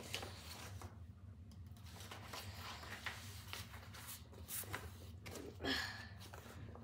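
Faint rustling and rubbing of paper vinyl record sleeves and printed inserts being handled, with a few soft taps.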